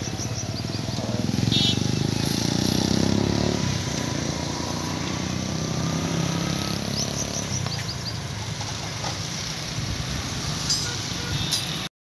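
A motor vehicle engine running close by, a low rumble that swells for a few seconds and then eases off, like traffic passing.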